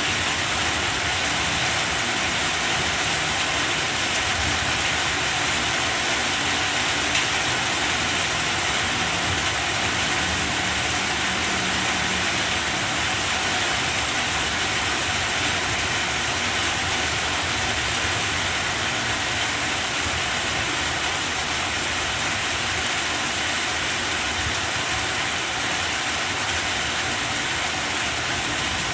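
Heavy rain falling steadily on banana plants: a dense, even hiss with no breaks or changes in level.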